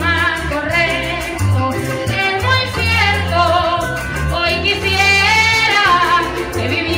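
A woman singing a llanera song into a microphone over amplified accompaniment with a steady bass line.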